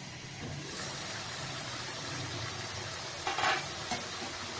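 Vegetables simmering in a little water in a covered wok over a gas flame: a steady low sizzle and hiss. About three and a half seconds in, a short scrape and click as the glass lid is lifted off.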